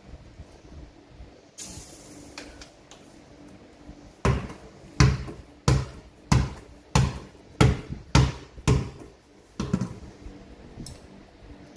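A freshly inflated basketball bounced on a hard floor about nine times in a steady rhythm, roughly one and a half bounces a second. A brief hiss comes before it, a little under two seconds in.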